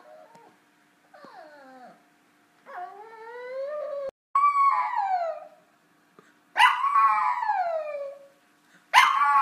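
Long-haired chihuahua puppy whining and howling in a temper tantrum: a string of calls, each falling in pitch, the first few soft whines that swell into loud howls about four, six and a half and nine seconds in.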